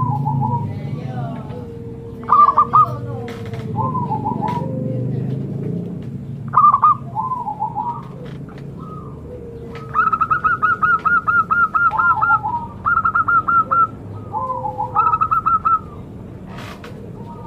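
Zebra dove (perkutut) cooing: short, repeated bouncing coo phrases, with a quick run of rapid staccato notes about ten seconds in, at roughly six notes a second.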